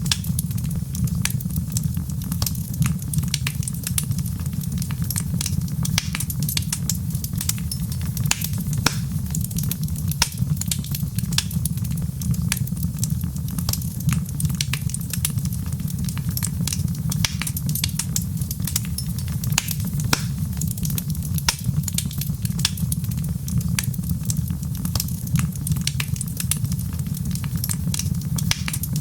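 Fireplace fire crackling, with many small irregular pops and snaps over a steady low rumble.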